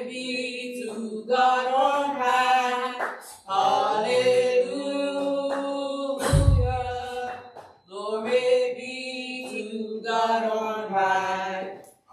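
Voices singing a hymn in slow phrases with long held notes. A low thump sounds once, about six and a half seconds in.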